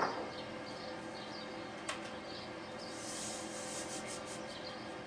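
A ceramic pepper pot is set down on a kitchen worktop with a sharp knock, followed by a small click about two seconds in and then faint, soft rubbing sounds.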